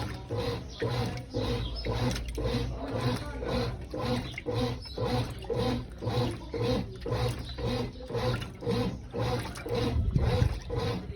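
Brastemp top-loading washing machine agitating in its wash cycle: the agitator reverses back and forth through water and laundry in a steady rhythm of about two to three strokes a second.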